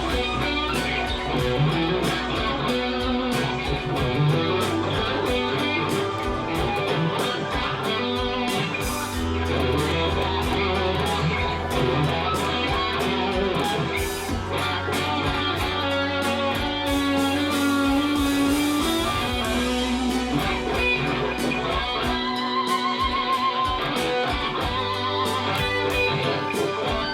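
Electric guitar improvising a lead in B minor over a backing jam track with a bass line and drums; some long notes are held and shaken with vibrato.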